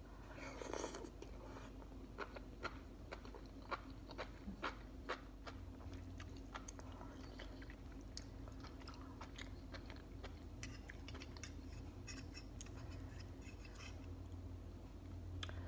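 Close-up chewing and biting of spicy chicken ramen noodles, with many short, sharp mouth clicks and smacks. A steady low hum runs underneath.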